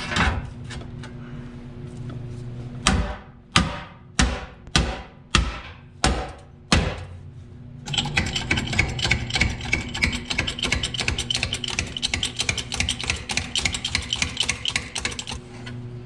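A hammer striking steel about seven times, each blow ringing briefly, then a fast, steady mechanical rattle for several seconds, over a constant low hum.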